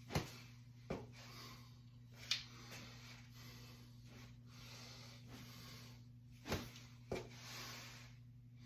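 A 9-iron golf club swung into a hit rope, giving five sharp knocks at irregular intervals, two of them close together near the end, over a steady low hum.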